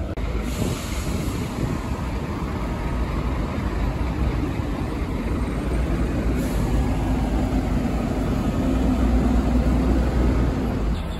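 Steady traffic noise from a busy multi-lane city road, with a large vehicle's engine droning louder in the second half as a city bus passes close by.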